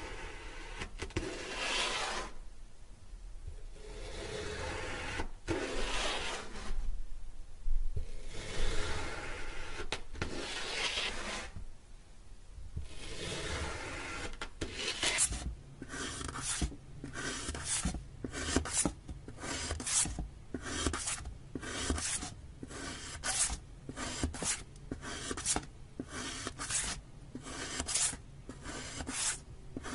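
Metal ice-cream scoop scraping and cutting through a block of packed sand, with a gritty rasp. Long drawn-out strokes come first; from about halfway it changes to a quick run of short scrapes, roughly two a second.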